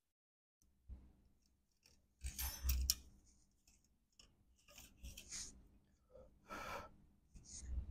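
Faint handling noises: several short scraping, crinkling bursts and clicks, the loudest a couple of seconds in.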